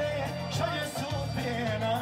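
Folk dance music played on accordion, with a melody line wavering through ornaments over a steady beat.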